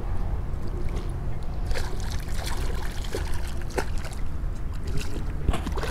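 Water splashing and trickling as a hooked sheepshead thrashes at the surface right beside a dock, over a steady low rumble.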